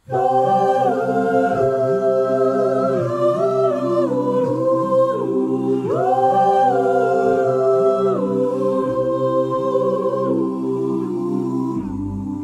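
A cappella vocal ensemble singing held, wordless chord harmonies without instruments. It starts suddenly, and the chords slide up and down between notes, swelling again about six seconds in.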